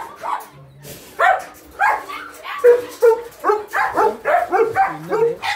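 Dog barking over and over, a quick string of short barks starting about a second in.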